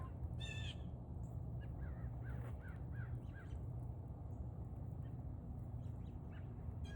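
A crow cawing once about half a second in and again near the end, with a small songbird giving a quick run of about six chirps in between, over a steady low background rumble.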